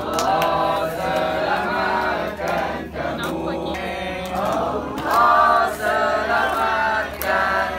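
A group of voices singing a melody together, with long held notes that swell loudest about five seconds in.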